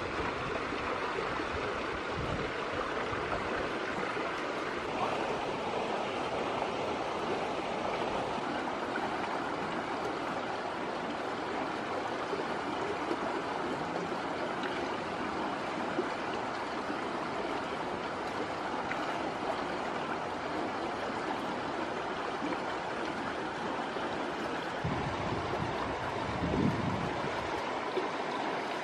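Steady rushing of running water, with a few soft knocks near the end.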